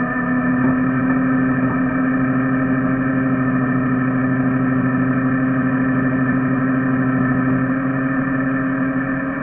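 Ford F-450 Super Duty tow truck's engine running steadily under winch load as the winch drags a small Jeep backward out of soft dirt. The sound is a steady, even hum.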